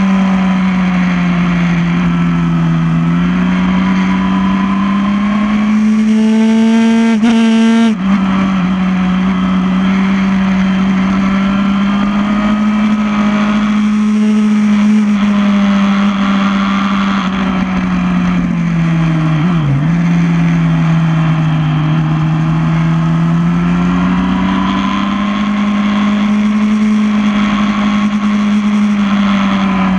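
2008 Yamaha R1's inline-four engine running hard on track, its pitch rising and falling through the corners, with a few quick dips where it changes gear.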